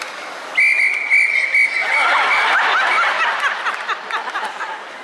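A whistle blown in one long, steady blast of about two seconds, broken by a few quick stutters. It is followed by the audience reacting with many voices laughing and calling out.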